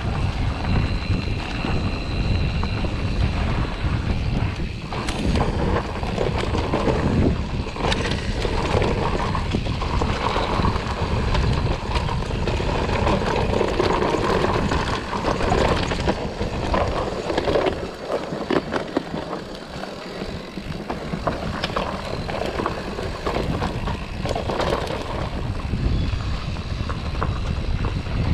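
Riding a mountain bike on a trail, heard from a camera on the bike or rider: wind buffets the microphone over tyre noise and the bike's rattles and knocks. The wind rumble eases for a couple of seconds about two-thirds of the way in.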